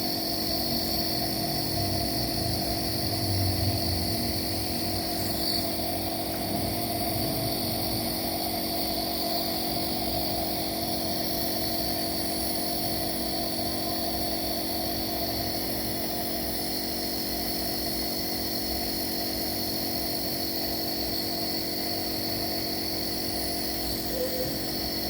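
Home nebulizer's compressor running with a steady, even hum and hiss, delivering medicated mist to loosen a baby's phlegm.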